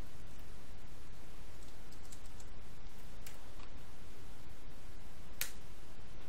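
A few scattered computer keyboard keystrokes, typing a search term, over a steady background hiss. The sharpest click comes a little after five seconds in.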